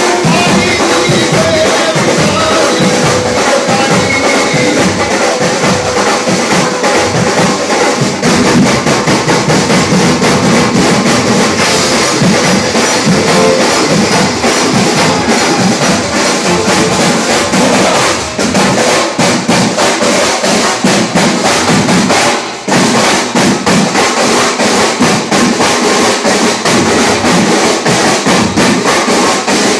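A live band plays dandiya music together: keyboards over a drum kit and percussion, with a dense, steady beat. The beat drops out for a moment about two-thirds of the way through, then picks up again.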